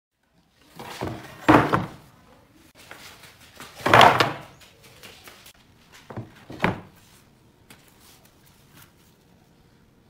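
A wide pine board being set down and shifted on a wooden workbench: a few dull knocks and short scrapes, the loudest about a second and a half in and around four seconds, with lighter knocks near seven seconds.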